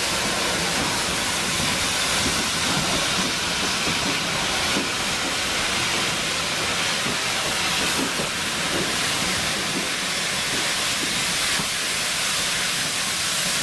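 Steady hiss of escaping steam from a steam train's locomotive.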